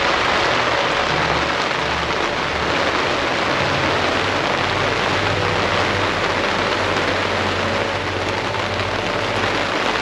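Steady rain falling on the fabric of a boat tent, heard from inside the tent.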